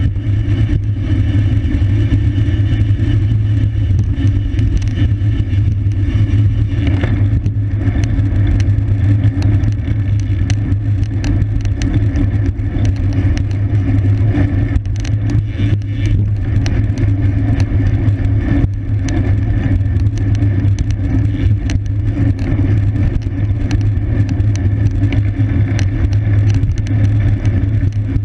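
Steady, loud wind rumble on the microphone with road and tyre noise from a road bicycle riding at race speed, with scattered small ticks and rattles.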